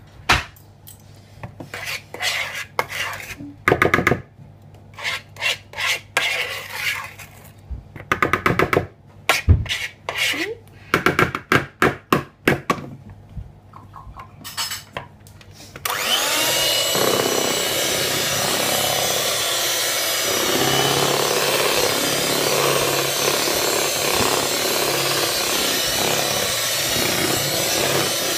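A spoon scraping around the sides of a plastic mixing bowl in short, irregular strokes. About halfway through, an electric hand mixer starts and runs steadily, beating cake batter.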